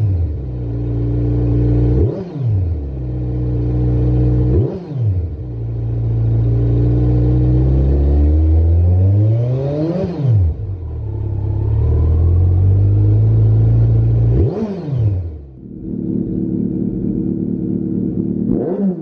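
Kawasaki Z900's inline-four engine through a Lextek CP1 aftermarket silencer, revved on the stand. Sharp throttle blips come every two to three seconds, and one slower rev climbs for about four seconds before dropping off. It settles lower near the end, with a last blip.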